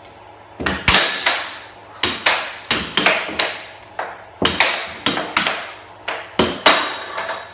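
Air hockey puck struck back and forth by plastic mallets and cracking off the table's rails: sharp clacks in quick flurries of several hits, with short lulls between rallies.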